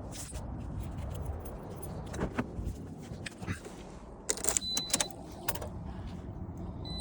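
Car keys jangling and clicking over a low steady rumble, with a short high electronic beep about four and a half seconds in and another near the end.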